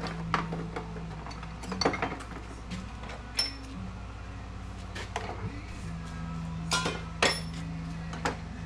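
Metal tools and parts clinking and knocking as they are handled during oil pan work, a dozen or so scattered sharp clinks, some with a short bright ring. A steady low hum runs underneath.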